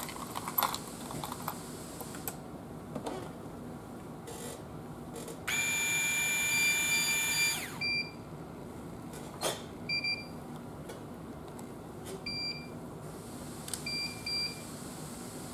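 A Vessel electric screwdriver runs for about two seconds with a pitched whine that slides down as it stops. Short electronic beeps from the poka-yoke assembly station repeat every couple of seconds, signalling an error in the assembly sequence. Light clicks of plastic bin lids come early on.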